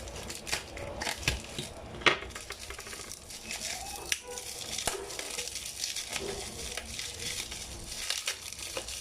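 Plastic bubble wrap being pulled open and unwrapped by hand: continuous crinkling and rustling with scattered sharp crackles and clicks, the loudest about two seconds in.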